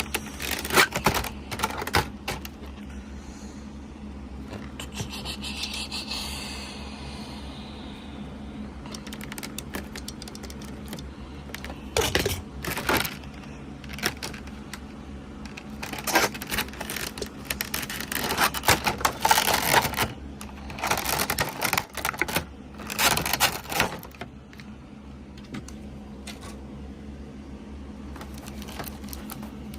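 Unpacking a boxed figure by hand: packaging rustling in bursts, with scattered clicks and taps of hard plastic pieces being handled.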